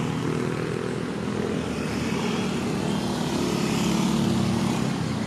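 Road traffic on a bridge: motorcycle and car engines passing close by, a steady engine drone over tyre and traffic noise.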